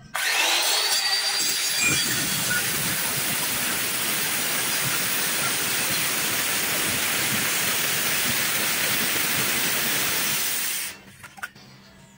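Handheld electric circular saw starting with a rising whine, then cutting steadily into an ulin (Borneo ironwood) beam, and stopping abruptly about eleven seconds in.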